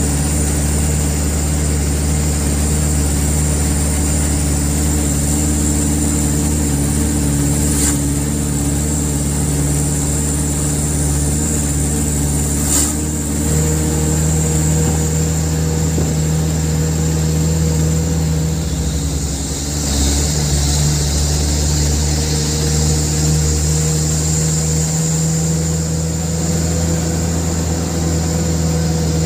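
Toyota Dyna truck's diesel engine running steadily while driving, heard from inside the cab; its note shifts a little higher about halfway through. Two sharp clicks come a few seconds apart before the shift.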